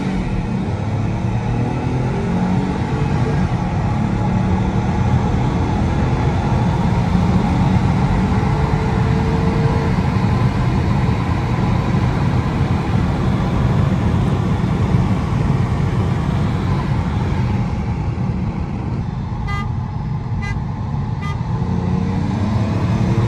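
A car accelerating hard, its engine note rising and falling over a steady rush of road and wind noise. Three short beeps sound about a second apart near the end.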